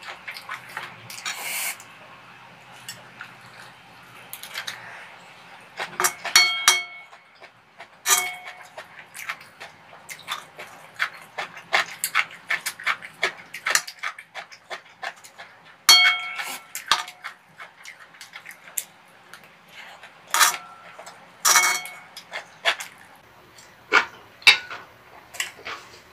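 Close-miked eating sounds: a metal spoon and chopsticks scraping and clicking against a griddle pan, with chewing. A few short ringing tones stand out as the loudest sounds, twice in the first third, about halfway through, and again later.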